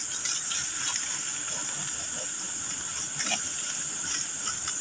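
Steady high-pitched hiss of insects, with a few faint ticks.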